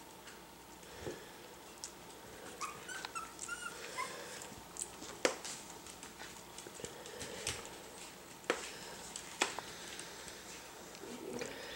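Miniature schnauzer puppies giving a short run of high squeaky whimpers about three seconds in. There are small knocks throughout and a few sharp clicks later on.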